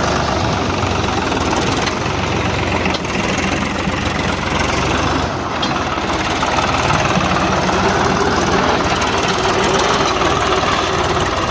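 Swaraj tractor's diesel engine running steadily, with a brief dip about five seconds in.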